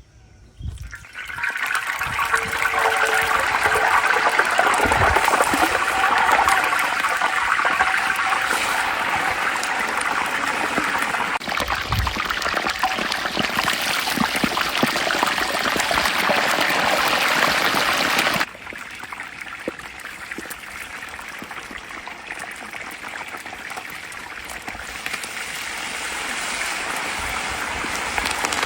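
Whole chickens deep-frying in a giant pot of hot oil, sizzling and bubbling loudly. It starts about a second in, drops suddenly about two-thirds of the way through, then slowly grows louder again.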